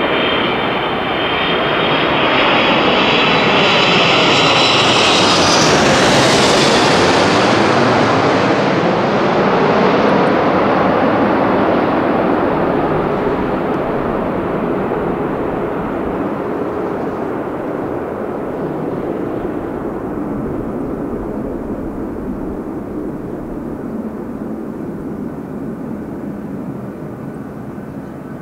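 Airbus A330-223F cargo jet with Pratt & Whitney PW4000 engines, on final approach with gear down and passing low overhead. Its high engine whine falls in pitch as it passes and is loudest about six seconds in, then it fades into a lower rumble as the plane moves away toward the runway.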